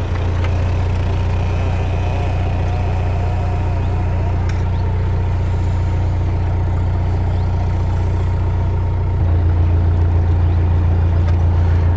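Narrowboat's inboard engine running steadily under way, a low even beat. About nine seconds in the engine note steps up and gets louder.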